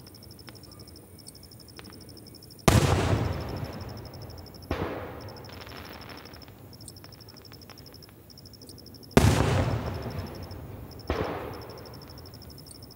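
Aerial fireworks shells exploding: two loud booms about three and nine seconds in, each followed about two seconds later by a smaller bang, every report trailing off in a long rumbling echo.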